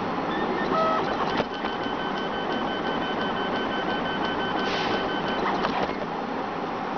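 RapidBot 2.0 FDM 3D printer printing, its stepper motors whining as the hotend moves over the part. Short changing tones come about a second in, then one steady whine is held for about four seconds, over a constant hiss.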